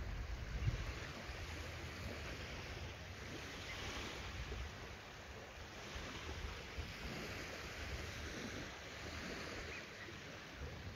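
Small waves lapping gently over shallow water and pebbles on a tidal flat, a steady soft wash. Some wind buffets the microphone, strongest in the first second.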